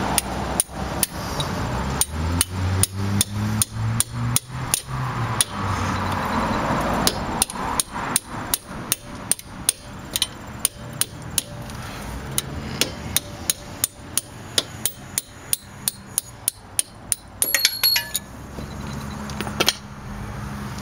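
Hammer striking a steel punch to drive the brake-pad retaining pin out of a 2005 VW Touareg rear brake caliper: a long run of steady sharp metal taps, about two a second. A brief metallic ringing clink comes near the end.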